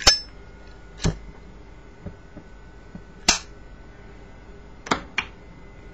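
Sharp metallic clicks from a metal lighter being handled, about five of them spread irregularly, the loudest at the very start and about three seconds in.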